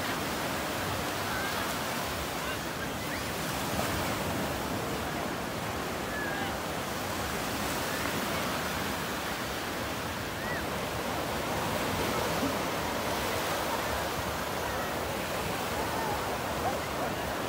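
Surf breaking and washing up a sandy beach in a steady, continuous rush, with faint voices of bathers now and then.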